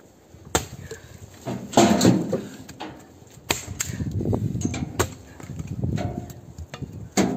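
Bellota axe chopping pine branches: about six sharp knocks at uneven intervals, the loudest about two seconds in and just before the end. Between them, dry twigs and branches crackle and rustle as they are handled and dragged.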